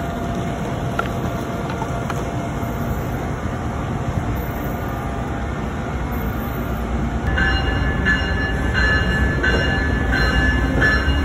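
Amtrak train with an ACS-64 electric locomotive standing at a station platform, giving a steady low rumble and hiss. About seven seconds in, the sound grows louder and a repeating high ringing tone starts, pulsing a little under twice a second.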